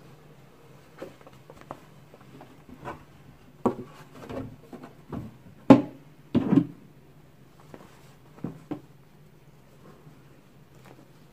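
Hands handling a cardboard gift box and a cotton dust bag: scattered soft knocks and rustles, the loudest knocks a little past the middle, over a low steady hum.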